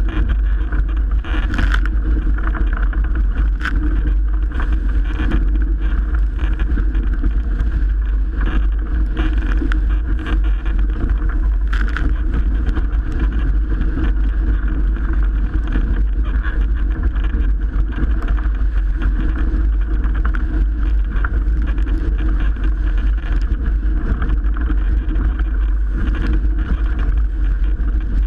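Strong wind buffeting the microphone and water rushing along the hull of a Melges 24 sailboat sailing fast in heavy wind. Short splashes of spray come through now and then.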